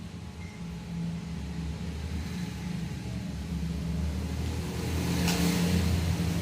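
Laminating machine's roller motor running with a steady low hum. About five seconds in, the hum swells and a brief hiss is heard.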